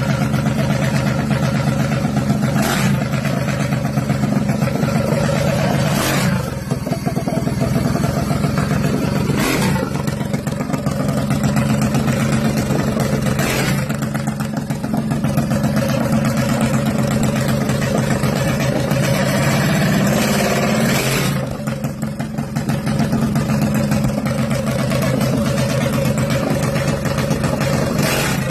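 Briggs & Stratton Animal single-cylinder racing engine with billet parts running steadily, with several brief throttle blips spaced a few seconds apart.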